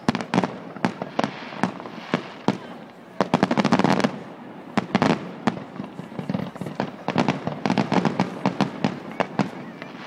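Fireworks display going off: rapid volleys of sharp bangs and crackles, densest about three to four seconds in and again over the last few seconds.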